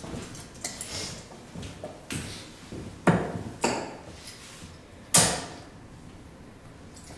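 Three darts thudding into a Winmau Blade 6 sisal bristle dartboard: two sharp hits about half a second apart, then a third about a second and a half later. Fainter clicks come before them as darts are pulled from the board.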